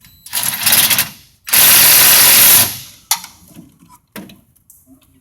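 DeWalt cordless power tool running down the shock absorber's top mounting bolts: a short run, then a longer, louder run about a second and a half in, followed by a few sharp clicks.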